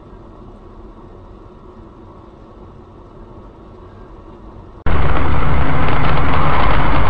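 Steady low rumble of a car on the move, as picked up by a dashcam. About five seconds in it jumps suddenly to a much louder, harsh rush of road and engine noise, where the recording changes.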